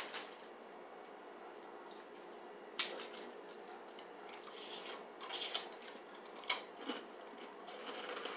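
A fortune cookie being handled and broken open: a sharp snap about three seconds in, then scattered short crinkles and crunches as it is broken up and eaten.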